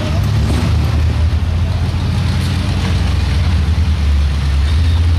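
Lifted off-road pickup's engine running steadily at low revs as the truck crawls over rocks, with a slight rise in level near the end.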